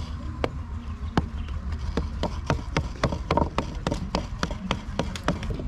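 Rapid, irregular sharp taps or knocks, several a second, over a low steady hum.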